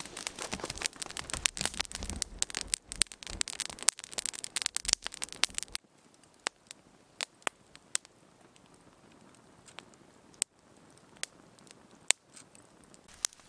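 Wood campfire of freshly added sticks crackling and popping hard as it bursts into flame. After about six seconds the crackle drops to occasional sharp single pops.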